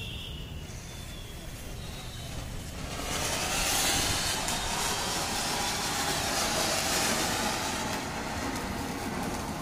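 Cone fountain firework (anar) hissing as it sprays sparks. The steady hiss starts suddenly about three seconds in and eases off near the end.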